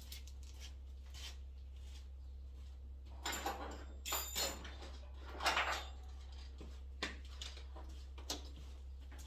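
Steady low electrical hum, with a few short scrapes, rustles and light knocks of things being handled about three to six seconds in, and a couple of faint clicks later.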